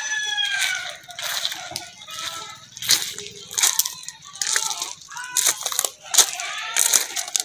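Building-site sounds: irregular sharp knocks and clinks, with short chirping bird calls between them. A rooster's crow trails off with a falling call in the first second.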